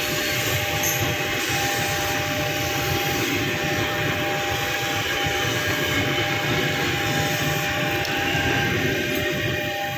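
KRL Commuterline electric multiple-unit train running past on the track, a steady rumble and rattle of wheels over rail with a few steady humming tones above it.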